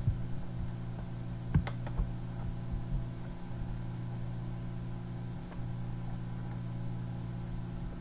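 Steady low hum, with a few computer mouse clicks and scroll-wheel ticks in the first three seconds.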